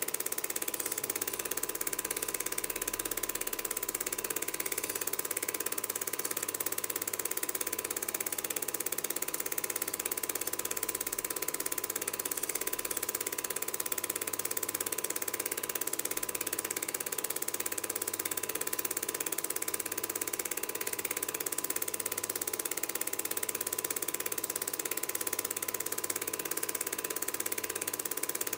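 Cine film projector running: a steady mechanical whirring with a thin, unchanging tone.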